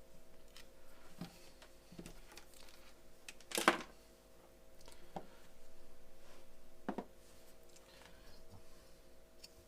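Scattered small clicks and taps from tools and parts being handled at a repair bench, with one louder short scrape about three and a half seconds in, over a faint steady hum.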